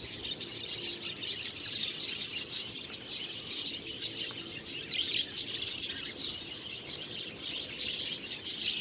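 A flock of caged budgerigars chirping and chattering without pause, many high chirps overlapping.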